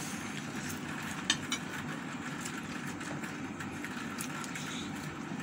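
Eating sounds: rice handled with the fingers on a plate and chewing, with a few soft clicks, one sharper just over a second in, over a steady background hum.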